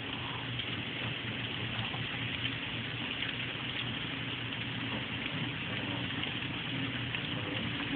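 Steady hiss of heavy rain and rushing water, with a faint low hum underneath.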